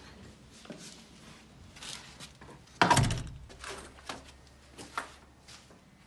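A heavy steel entrance door being handled: one loud thud about three seconds in, then a few lighter clicks and knocks, over rustling.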